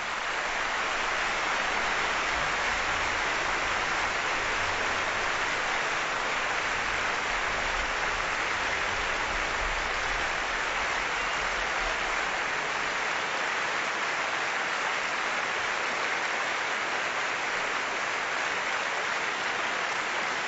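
Large audience applauding: dense, even clapping that builds over the first couple of seconds and then holds steady.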